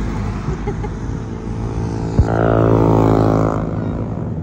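Motor vehicle traffic on a road: a steady engine and road rumble. About two seconds in there is a sharp knock, then a louder engine note swells, falls slightly in pitch and fades.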